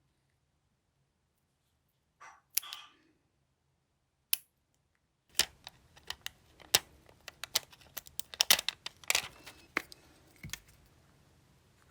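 Small clicks and taps of nail-art tools and parts being handled: a couple of isolated sounds in the first half, then a quick irregular run of sharp clicks from about five seconds in.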